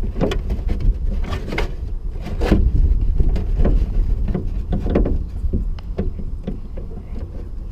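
Irregular knocks, clicks and rattles of parts and wiring being handled while a carbon fiber trunk lid is fitted, over a low rumble.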